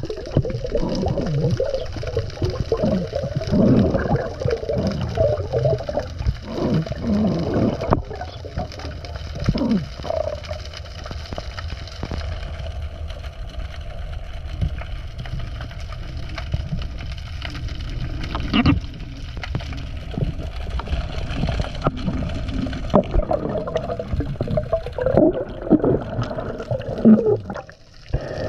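Water sloshing and gurgling over a submerged action camera, in uneven surges with a low rumble and a few sharp clicks.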